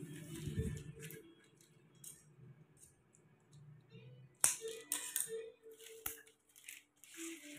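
Soft background music with sparse held notes, under intermittent short rustles and clicks from plastic weaving strips being handled, the sharpest about four and a half seconds in.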